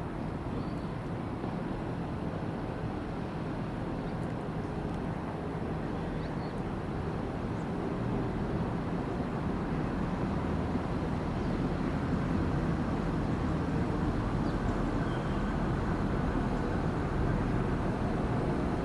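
Two coupled Class 172 Turbostar diesel multiple units running into a station, their underfloor diesel engines and wheels making a steady rumble that grows louder as the train approaches.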